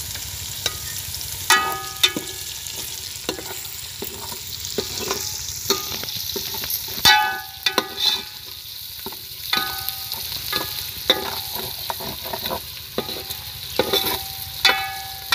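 Onion, green chillies, ginger and garlic sizzling in hot ghee in a metal pot, with a metal ladle stirring and clinking against the pot's side in irregular ringing strikes, the loudest about seven seconds in.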